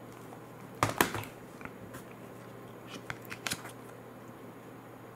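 Hockey trading cards handled in the hands: sharp clicks and snaps of card stock as a card is turned over within a small stack, loudest about a second in and again in a short cluster around three seconds.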